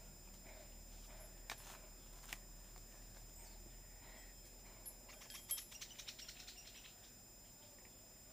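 Two sharp clicks, then a quick run of scraping clicks lasting about two seconds, typical of a ferrocerium rod being struck to throw sparks onto tinder.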